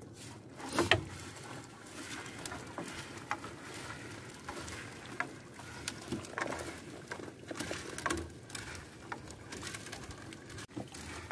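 Wet fishing net being hauled by hand into a small boat: an irregular patter of dripping water with scattered knocks and rustles.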